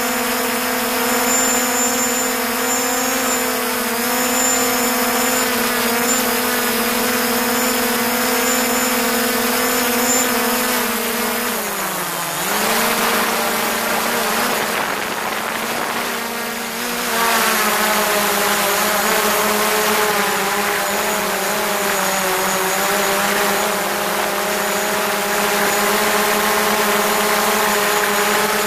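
DJI Mavic Pro quadcopter's motors and propellers running in flight, heard at close range: a steady, many-toned buzzing whine. About twelve seconds in the pitch dips and the sound turns rougher for a few seconds, then settles back to a steady whine.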